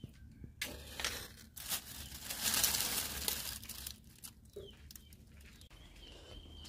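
Dry leaves rustling and crackling as a bundle is handled and stuffed into the mouth of a clay mud stove to kindle a fire, loudest around two to three seconds in, then dying down.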